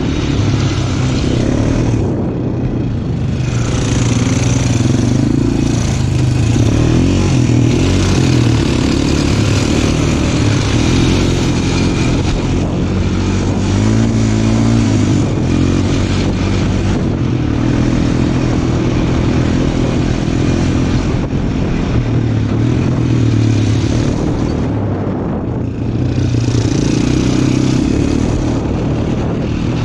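Small off-road vehicle engine running under load while riding over rough ground, with rushing wind and terrain noise; the throttle eases off briefly twice, a couple of seconds in and again near the end.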